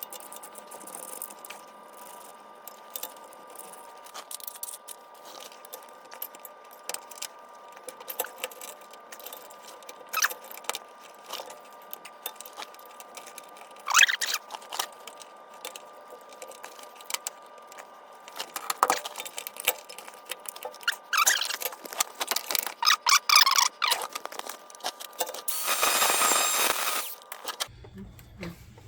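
Metal parts and hand tools clinking, rattling and knocking as a console shifter conversion assembly is fitted, in scattered sharp clicks over a faint steady hum, with a rasping burst of about two seconds near the end.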